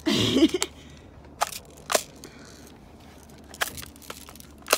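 BB gun fired once, a short sharp burst right at the start, followed by a few separate sharp clicks.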